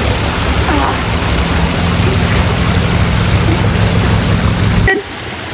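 Pool water splashing and sloshing around a swimmer, over a steady low rumble that cuts off abruptly near the end.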